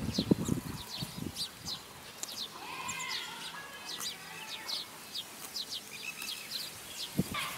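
Zebu cow grazing close by, tearing and crunching grass in a run of low crunches in the first second and a half. Small birds chirp throughout, and a short animal call comes about three seconds in.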